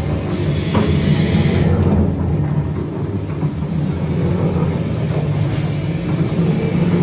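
Ribbon blender running: its electric motor, belt drive and gearbox make a steady low hum and rumble. A brief hiss sounds about half a second in.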